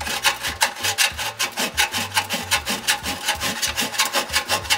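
Hand file rasping over a TIG-welded seam in sheet metal in quick, short, even strokes, about five a second, taking the weld down flush.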